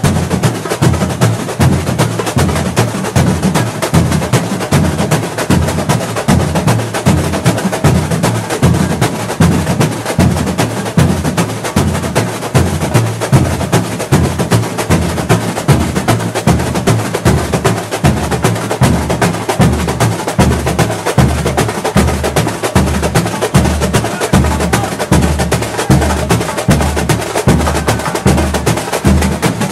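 Samba school drum section (bateria) playing a batucada: deep surdo drums beating about twice a second under a dense, fast layer of higher drums and percussion.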